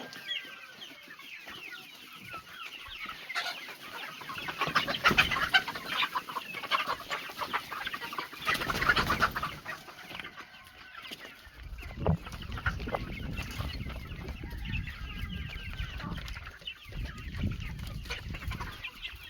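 A flock of chickens clucking and cheeping, many short overlapping calls that grow busiest and loudest in the middle. A low rumble joins in during the second half.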